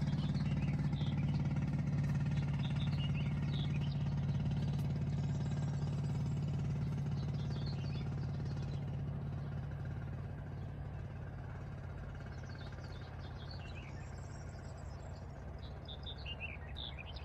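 An engine running steadily with a low hum that slowly fades away, while small birds chirp now and then over it.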